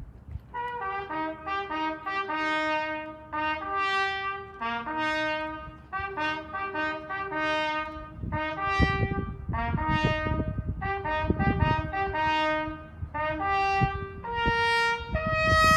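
Solo trumpet playing a ceremonial fanfare, a single melody in short phrases of quick notes, ending on a long held note.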